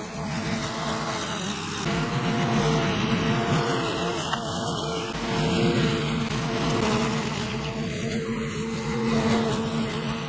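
Honda walk-behind petrol lawn mower running at a steady speed while mowing long, dry grass, its engine hum rising and dipping slightly with the load.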